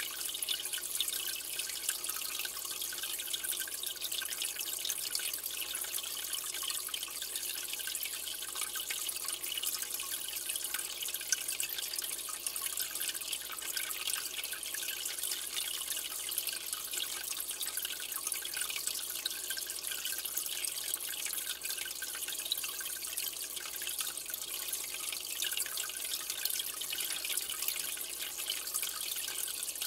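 Steady trickling and splashing of aquarium water, with a constant patter of small drips.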